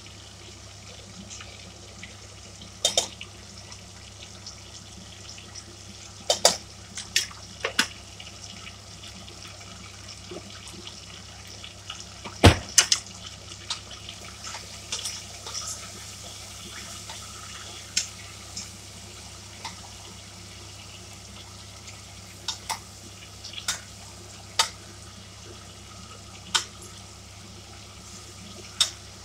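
Chicken pieces with ginger and garlic cooking in a stainless steel pot on a gas burner, sizzling steadily. A wooden spoon stirring the chicken knocks against the pot now and then, loudest about twelve seconds in.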